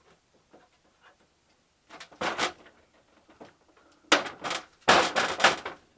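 Hand tools and parts being handled: a few light ticks, then short bursts of clattering and rattling, loudest in the last two seconds.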